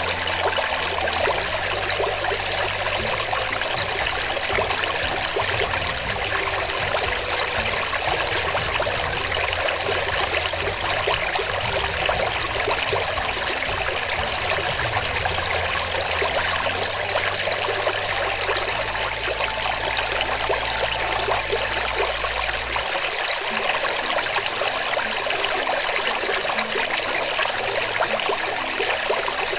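Steady sound of running water. Beneath it a low hum shifts in pitch in steps and stops about 23 seconds in.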